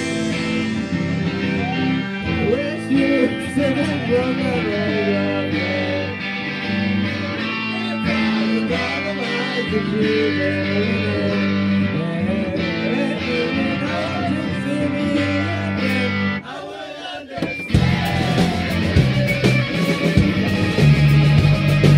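Live rock band playing, led by electric guitar with bending lead lines over a full band. About three-quarters of the way through, the band drops out for a moment, then comes back in louder with sharp drum hits.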